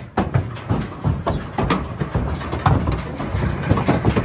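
Steers' hooves knocking and clattering irregularly on a livestock trailer floor as the cattle move out of the trailer, several thuds a second.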